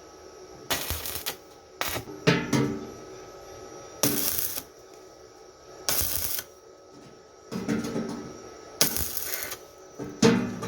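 Metal clattering and scraping in about eight short bursts, each around half a second, with a little metallic ringing under several of them.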